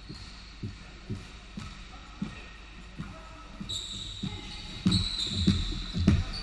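Basketball bouncing on a hardwood gym floor, dull thuds about twice a second; a little over halfway through, play picks up with heavier thuds and high sneaker squeaks on the court.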